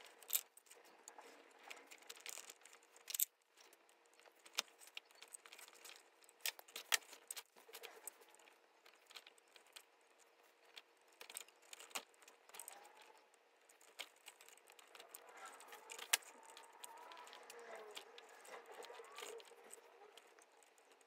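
Hand saddle-stitching leather: small sharp clicks and ticks of steel needles and an awl against each other and the work, with the soft rasp of thread drawn through the stitch holes, irregular and scattered.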